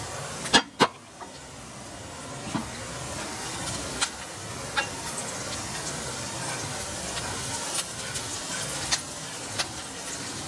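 Diced onion sizzling in butter and vegetable oil in a frying pan, a steady hiss. Two loud knocks come under a second in, then scattered sharp clicks as the onion is stirred with chopsticks.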